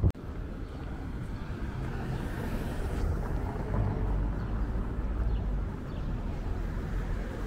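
Steady outdoor street ambience: a low rumble of road traffic with no clear single event, after a short click at the very start.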